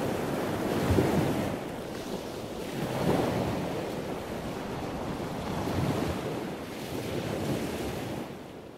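Ocean surf: waves washing in and drawing back in repeated swells, fading out near the end.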